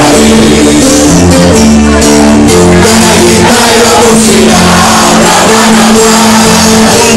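Loud live Greek folk-rock band music, a laouto (Greek lute) and a second string instrument playing over a steady bass line, with a voice singing.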